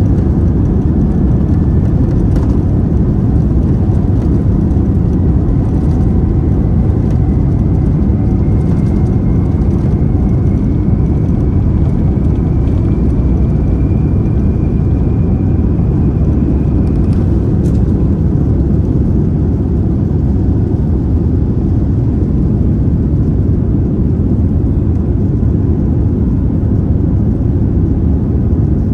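Boeing 787-9 takeoff roll and lift-off heard from inside the cabin: a steady, loud rumble of the GEnx-1B engines at takeoff power, with a faint whine rising slowly in pitch through the first seventeen seconds or so and a few light clicks.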